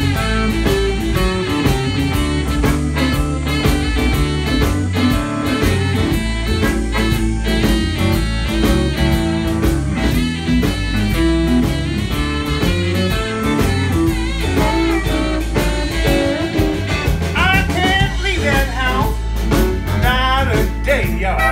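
Live blues band playing a groove, with saxophones, electric guitar, keyboard and drum kit. A singer comes in near the end.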